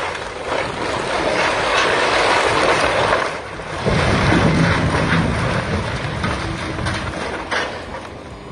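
Old wooden barn collapsing under an excavator: a long rush of crashing debris, then a sudden heavy low rumble about four seconds in as the roof and front wall come down, fading over the last second.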